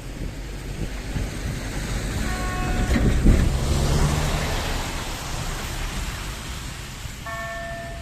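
A train passing over a level crossing: rumble and rush of the train building to a peak about three seconds in, then fading. Near the end the crossing's KLD-4103 electronic warning signal comes through, ringing tones repeating about once a second.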